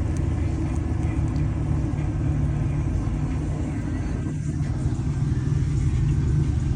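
Chevy van engine running at a steady idle, a constant low rumble.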